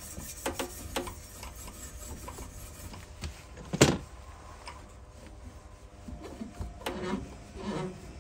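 Pipework being cleaned up by hand: light rubbing and scraping against the pipe, with scattered small knocks and one sharper knock about four seconds in.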